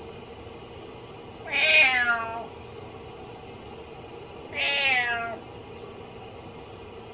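A domestic cat meowing twice, two drawn-out calls of about a second each, roughly three seconds apart, calling for its absent owner. A steady hum runs underneath.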